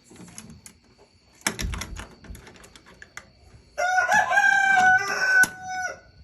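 A few knocks and clicks as the chicken coop is shut up, then a rooster crows once, a loud call held for about two seconds in the second half.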